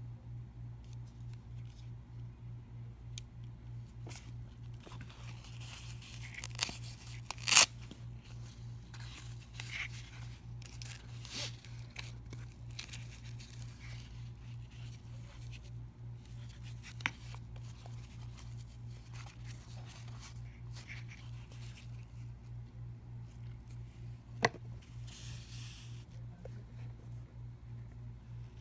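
Handling noise as the stun flashlight and its black nylon holster are turned over and rubbed in the hands: rustling and scraping with a few sharp clicks and taps, the loudest about seven and a half seconds in and another near the end. A steady low hum runs underneath.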